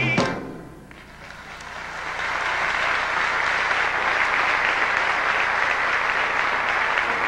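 Theatre audience applauding at the end of a song: the last sung note cuts off just at the start, and the clapping builds over about two seconds, then holds steady.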